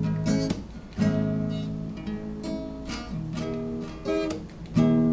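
Acoustic guitar strumming chords, with strong strokes about a second in and again near the end, each ringing out between them.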